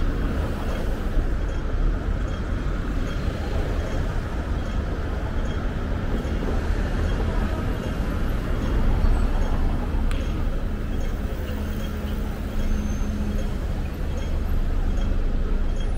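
Busy city street ambience: a steady rumble of road traffic with vehicles passing, under a general background of pedestrians and city noise.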